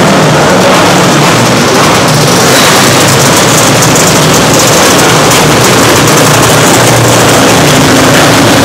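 Engines of several small winged dirt-track sprint cars running together on the track, loud and steady.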